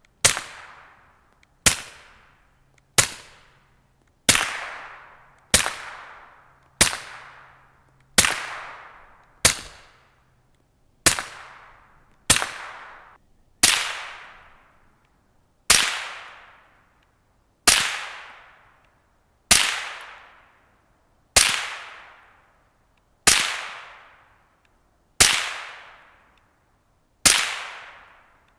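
Suppressed 5.7x28mm gunfire through a Dead Air Mask suppressor: about eighteen single semi-automatic shots, each a sharp crack with a short ringing decay. They come roughly every 1.3 seconds at first, from an FN Five-seveN pistol, then about every 2 seconds from a Diamondback DBX.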